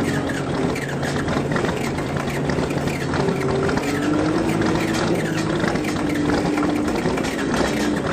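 John Deere 4630's turbocharged six-cylinder diesel running just after a cold start, not plugged in to a block heater. It gives a steady clatter over a hum whose pitch shifts up and down a few times.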